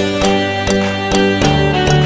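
Background music: a plucked-string tune over a steady beat.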